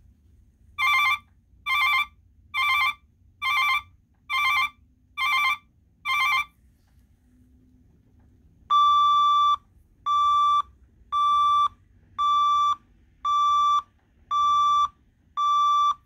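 Two vehicle backup alarms beeping in turn. The first gives seven harsh, buzzy beeps at about one a second. After a pause of about two seconds, the second gives seven clean, single-pitched beeps at the same pace, the first of them held a little longer.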